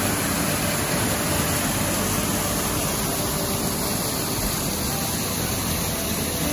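Small mountain waterfall and the stream below it splashing over rock ledges: a steady rushing of water.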